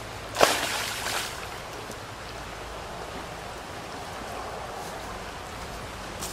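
A crayfish trap lands in a fast-flowing river with one loud splash about half a second in, over the steady rush of the current.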